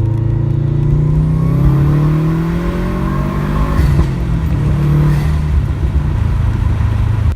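2011 Subaru WRX's turbocharged flat-four boxer engine pulling hard under boost, its revs climbing for about four seconds, then dropping and climbing again. It is a test pull after new spark plugs and coil packs, running with no misfire.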